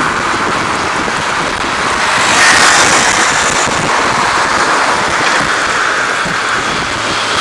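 Wind rushing over a moving bicycle's camera microphone, mixed with road traffic noise, a steady rush that grows louder for about a second some two and a half seconds in.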